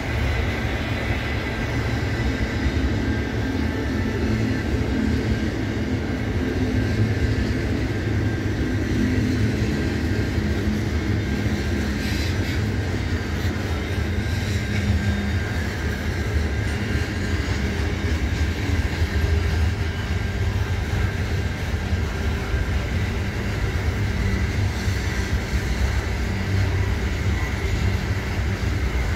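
Freight train wagons rolling past steadily on the rails, a continuous noise of wheels and running gear.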